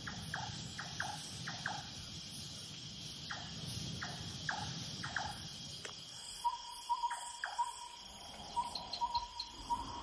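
Night insect chorus, a steady high chirring, with a scatter of short falling chirps over the first six seconds. From about six and a half seconds in, a pulsing trilled note joins and keeps going.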